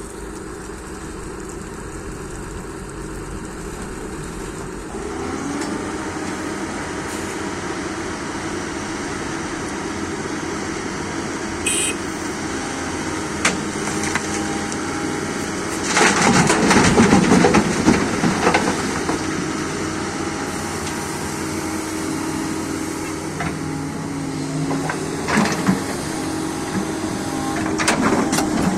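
Doosan excavator's diesel engine running under working load, revving up about five seconds in. A loud rattling rush of rock and gravel comes in the middle, with a few knocks near the end.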